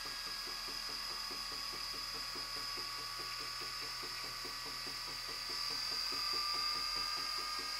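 Small electric motor of a walking-cube robot running steadily on a bench power supply under a heat test: a steady high whine over a regular soft ticking about six times a second, a little louder near the end.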